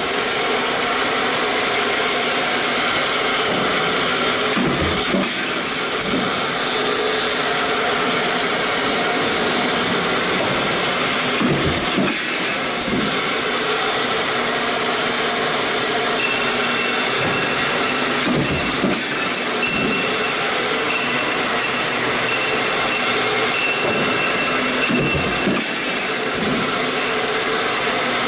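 Stamping press running a progressive deep-drawing die, giving a steady machine noise. A dull knock comes about every seven seconds, and a faint high whine comes in about halfway through.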